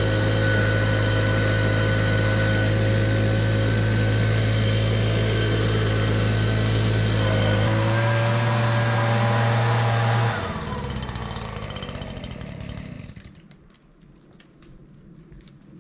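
Petrol leaf blower running at a steady high speed, blowing air into a mink's den among the rocks to drive the mink out. Its pitch shifts slightly about eight seconds in; about ten seconds in it is cut off and winds down over the next few seconds.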